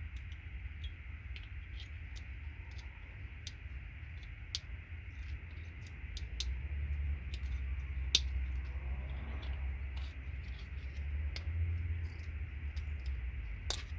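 Irregular sharp clicks and snaps of side cutters clipping gold-plated pins out of a plastic RJ45 patch panel connector, over a low rumble.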